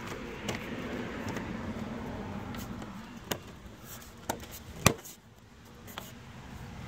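Plastic dashboard trim (the fuse panel cover) being handled and pushed into place: a few seconds of rustling, then four sharp clicks, the loudest about five seconds in.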